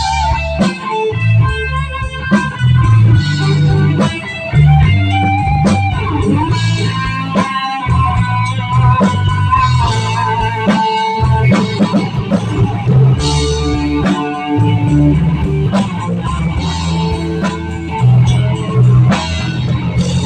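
Live rock band playing an instrumental passage: an electric guitar plays a bending, vibrato lead line over bass guitar and drums.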